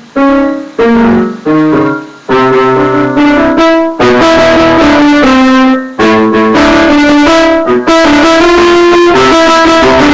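Piano music, loud: a few single notes with short gaps, then from about two seconds in a steady run of notes and chords.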